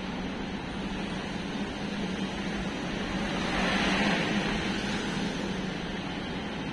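Street traffic: a steady hiss and hum of cars passing on the road, with one vehicle going by louder about four seconds in.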